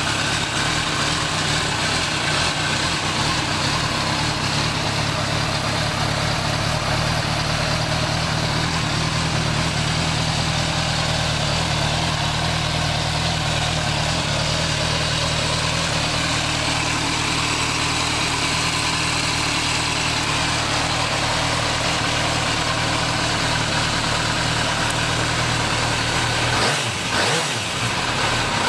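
MV Agusta Brutale 920 inline-four motorcycle engine idling steadily, heard close to the bike.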